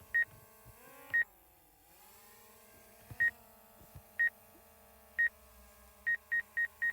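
Obstacle-avoidance proximity warning from the DJI Air 2S's controller: short high beeps, at first about once a second, then quickening to about four a second near the end as the drone closes on an obstacle and brakes.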